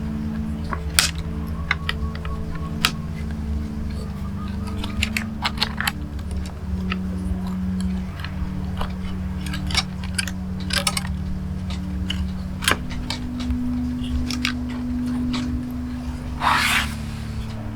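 Light clicks and taps of fingers and small tools handling a laptop's internal cables, connectors and screws, scattered irregularly, with a brief rustle near the end, over a steady low hum.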